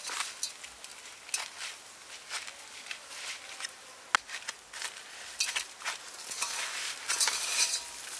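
Dry breadcrumbs rustling and crunching as raw chicken drumsticks are pressed and turned in them in a steel tray, with a sharp click about four seconds in. Near the end the crackle thickens as more crumbs are sprinkled over the chicken.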